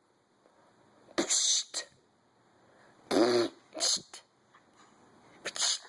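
A toddler making loud kiss sounds with her lips: about five short, breathy smacks, one with a bit of voice in it about three seconds in.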